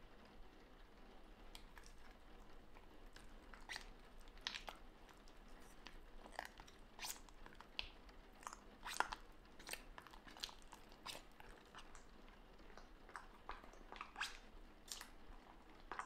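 Metal spatula stirring thick black plastisol ink in a plastic tub: quiet, irregular sticky clicks and scrapes of the blade working through the ink and against the tub wall.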